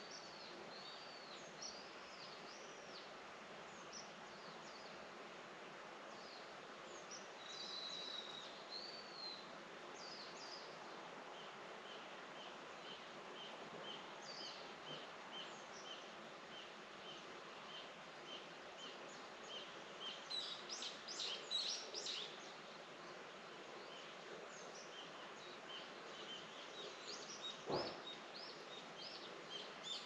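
Small birds chirping and calling over a steady outdoor hiss, with a flurry of calls about two-thirds of the way through. Through the second half, a short high note repeats about twice a second. There is a single knock near the end.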